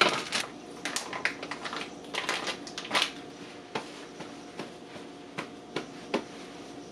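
Plastic packaging and paper crinkling and rustling in the hands as raw chicken is unwrapped: irregular sharp crackles, busiest in the first three seconds and thinning out after.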